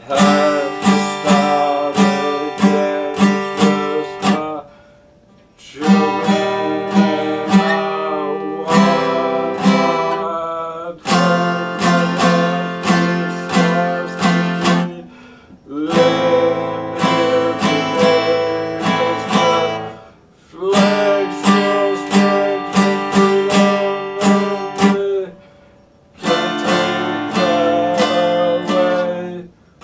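Epiphone acoustic guitar strummed in steady rhythmic chords, played in phrases broken by several short pauses, with a man's voice singing along.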